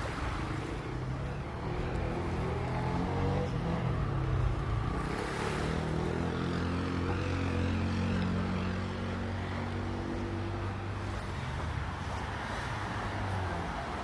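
A motor engine running for most of the stretch: its pitch rises over the first few seconds, holds steady, then fades near the end, with small waves washing at the shoreline underneath.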